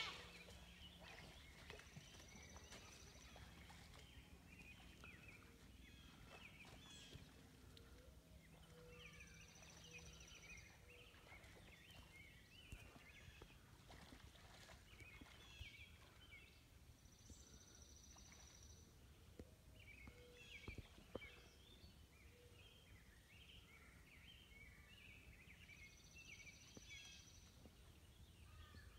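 Faint outdoor ambience: small birds chirping on and off, with a high buzzy call lasting a second or two that comes back about every eight seconds.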